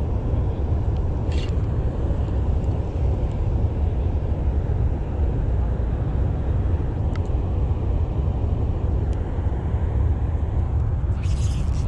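A steady, loud low rumble, with a few faint clicks and a scraping rustle that starts near the end.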